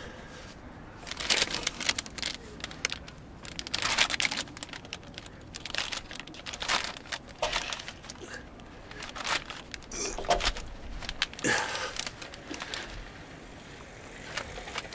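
Ratchet wrench with a cap-type oil filter wrench being worked on a car's oil filter to loosen it: irregular bursts of ratchet clicks and metal clinks, with short pauses between strokes.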